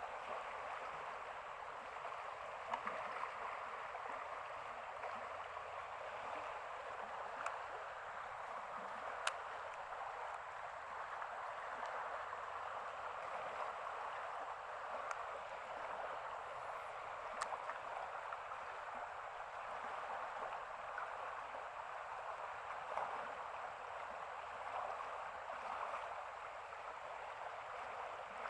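Steady rush of running water from a flood-swollen stream, with a few faint sharp clicks.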